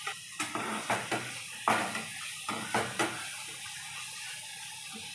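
A spatula scraping and knocking against a steel kadhai as a wet masala is stirred, with a series of quick strokes over the first three seconds. Then the masala sizzles steadily in the pan.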